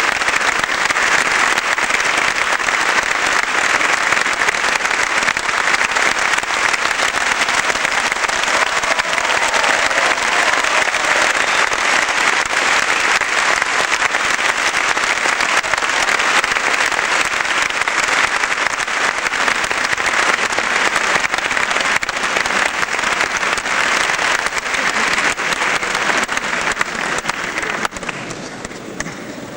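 Audience applauding steadily, a dense patter of many hands clapping that thins out and drops in level near the end.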